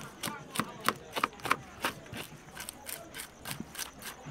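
Busy market background: distant voices with a run of irregular sharp clacks and knocks, several a second, loudest about a second in.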